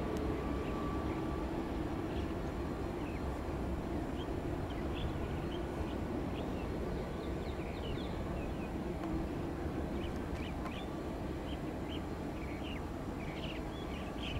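Steady low rumble of a Cargolux Boeing 747 freighter's jet engines as it rolls out along the runway after landing, easing slightly. Small birds chirp over it from a few seconds in, more often in the second half.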